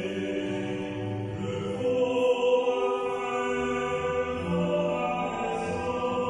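Slow hymn singing, with long held notes.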